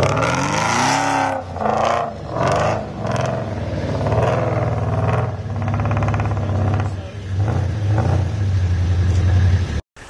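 Off-road 4x4 pickup's engine revving up and down in repeated bursts as it climbs a steep, rutted dirt hill, holding high revs near the end.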